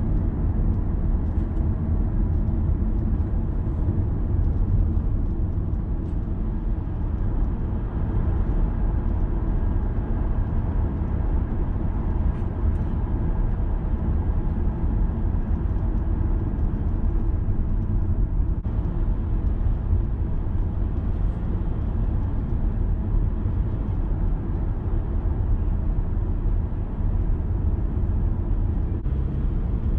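Steady low rumble of a car driving in town, its engine and tyre noise heard from inside the cabin, with a few faint ticks now and then.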